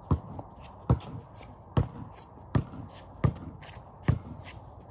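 A basketball being dribbled on a concrete driveway: six evenly spaced bounces, a little over one a second.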